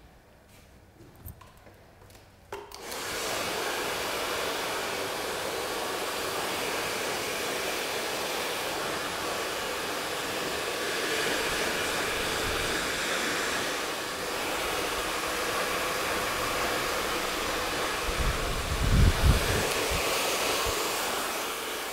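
A handheld hair dryer switches on about two and a half seconds in and runs with a steady rushing blow. Near the end there are a few low thumps.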